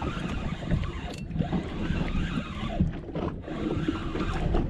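Wind buffeting the microphone over water slapping against the hull of a small boat at sea, with a few light knocks.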